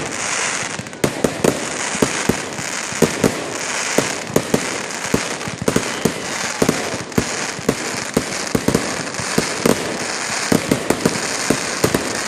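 Fireworks going off: a steady hiss with rapid, irregular sharp cracks, several a second.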